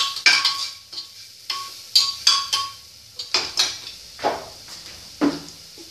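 Metal spoon scraping and knocking against the inside of an aluminium pressure cooker while stirring spice masala frying on a high flame, with a faint sizzle underneath. The strokes come quickly at first and thin out over the second half.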